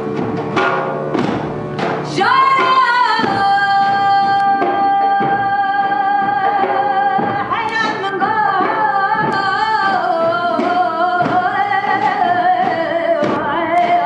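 Live band music with a woman singing. After about two seconds of drums alone, her voice comes in on a long held note, then turns into wavering ornamented phrases and holds another long note near the end, over steady drum strokes.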